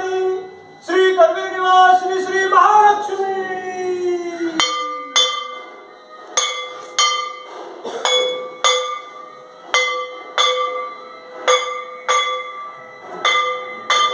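A man's chanting voice holds long, slowly falling notes; then, about four and a half seconds in, a temple bell starts ringing in steady, evenly spaced strokes, a little under two a second, each stroke ringing on.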